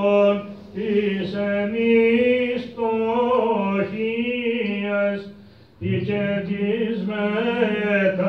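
A male voice chanting a Byzantine hymn of the Greek Orthodox vespers, drawing the syllables out into long, ornamented melodic lines. The chant breaks off for a breath twice, briefly about half a second in and again about five and a half seconds in.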